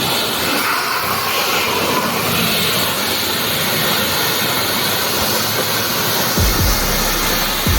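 Pressure washer spraying water in a steady hiss, with a few low thumps near the end.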